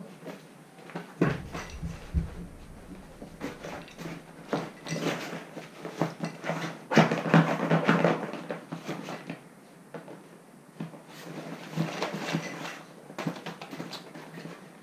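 American Staffordshire terrier puppies play-fighting: irregular scuffling, rustling and small knocks, busiest and loudest from about seven to nine seconds in.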